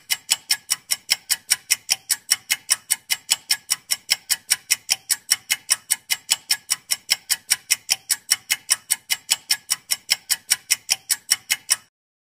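Countdown clock ticking sound effect: a quick, even run of sharp ticks, about four or five a second, that stops suddenly near the end.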